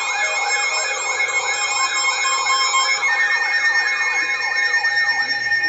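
Weather radio alert sirens sounding together: a rapidly repeating rising-and-falling electronic sweep, about two to three a second, over several steady alarm tones. This signals a new weather warning. The sweeping stops shortly before the end, leaving the steady tones.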